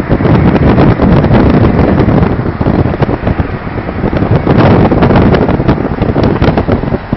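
Wind buffeting the microphone of a camera in a moving car, a loud, crackling rumble over the car's road and engine noise.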